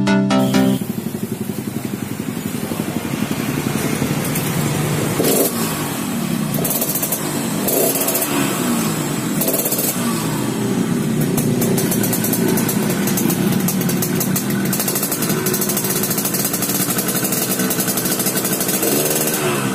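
Yamaha RX-King two-stroke single running through a gutted (bobokan) exhaust with a rough, snoring "ngorok" note, the throttle blipped several times so the pitch rises and falls. Music cuts out within the first second.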